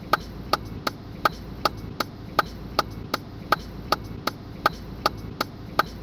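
Car turn-signal indicator ticking in a steady rhythm, about three clicks a second, over the low hum of the moving car.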